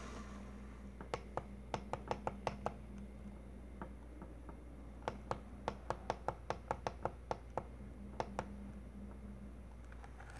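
Buttons on a small alarm clock clicking as they are pressed again and again to set the time: a short run of clicks about a second in, then a faster run of about a dozen at roughly five a second from about five seconds in, and a couple more near the end.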